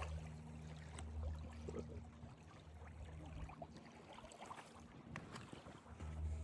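A low, steady motor hum stops about three and a half seconds in and starts again near the end, with faint scattered clicks and knocks.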